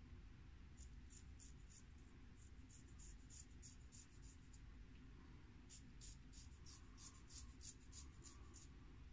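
Faint, crisp scraping of a 5/8 Geo. Wostenholm straight razor cutting through beard stubble in short, quick strokes, about three or four a second. The strokes come in two runs with a pause of about a second between them.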